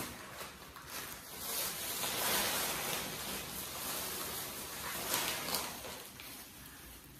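Thin plastic shopping bags rustling and crinkling as they are handled and lifted out, loudest around the middle.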